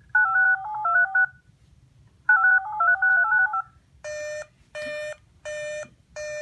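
Emergency alert equipment sounding two short strings of touch-tone (DTMF) tone pairs, each about a second and a half long. About four seconds in, a train of evenly spaced buzzy beeps follows, roughly one every 0.7 s. The tones mark the handover from the end of one warning broadcast to the start of the next.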